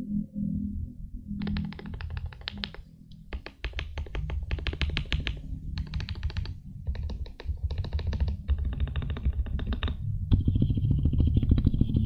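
Fast typing on a KBD67 Lite mechanical keyboard with Durock POM linear switches and Akko ASA-profile keycaps: quick runs of keystroke clicks broken by short pauses, starting about a second and a half in.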